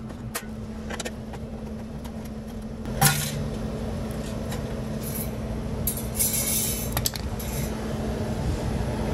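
Refrigeration condensing unit under a Delfield drop-in freezer running with a steady hum, while a hand trigger spray bottle squirts onto it, a sharp spray about three seconds in and a longer hiss around six seconds.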